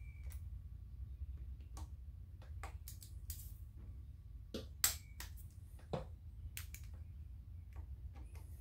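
Scattered sharp metal clicks and taps as a 5/32 Allen socket on a torque wrench is fitted to and tightened on the lifter anti-rotation pin bolts of a Harley Sportster crankcase. The loudest tap, just before the middle, rings briefly.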